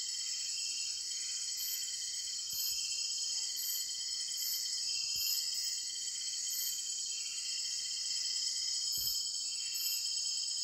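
Dense chorus of insects: a steady, high-pitched shrill drone with several chirping calls repeating over it, roughly once a second.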